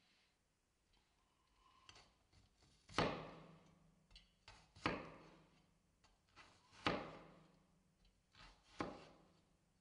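Chef's knife chopping fresh coconut flesh on a wooden cutting board: four firm knife strikes about two seconds apart, with lighter taps between them.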